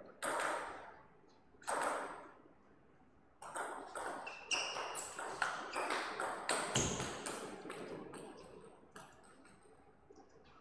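Table tennis ball clicking off bats and table: two single knocks in the first two seconds, then a rally of quick strikes and bounces, about three or four a second, for some five seconds before it stops.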